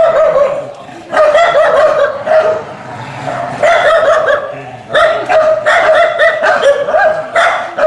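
Dogs barking and yelping in repeated bursts, on and off.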